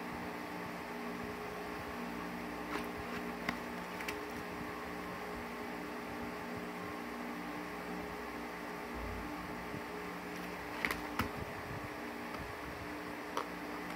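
Steady electrical hum and hiss of room noise, with several low tones held throughout. A few faint clicks and taps from the cardboard box being handled, around three to four seconds in and again near eleven seconds.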